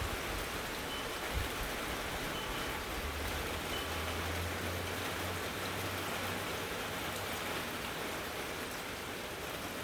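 Steady hiss of heavy rain from an approaching hurricane, with a low rumble of a wind gust a few seconds in.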